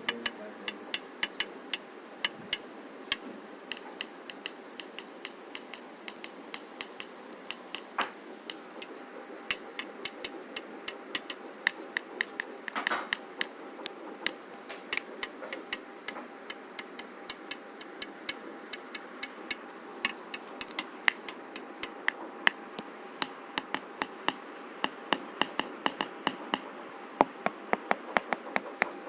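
Many light, sharp taps at an irregular pace, often two to four a second and coming in quicker runs in places, like small tool strokes on a hard surface, with one longer rasp about halfway through.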